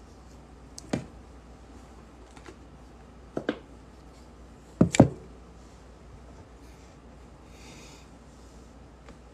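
A few light knocks and clicks of hard objects being picked up and set down, about five in all, with the loudest pair about five seconds in; a soft rustle follows near the end.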